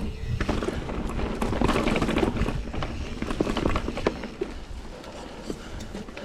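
Mountain bike rolling over a dirt trail: tyre noise with scattered clicks and rattles from bumps in the ground, growing quieter about four seconds in.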